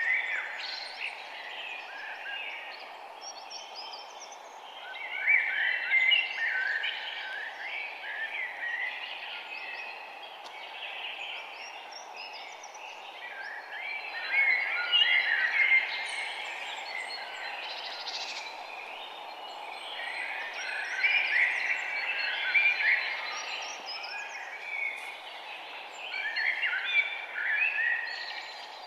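Songbirds singing in dense chirping bursts of a few seconds, coming back about every six to eight seconds, over a steady low hiss of background noise.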